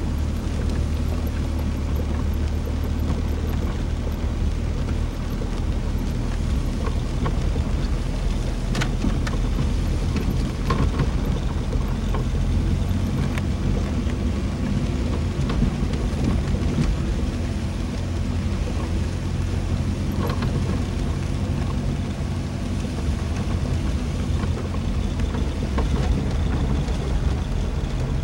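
Car driving along a road: a steady low rumble of engine and tyre noise, with a few faint clicks.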